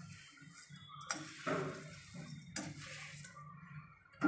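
Puffed-rice chivda stirred in a steel pan, with a few sudden scraping, rustling strokes of the spatula on the metal and the dry puffed rice.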